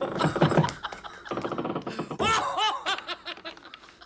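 A man laughing heartily, in quick 'ha-ha-ha' pulses that rise into high, stretched-out whoops about two seconds in.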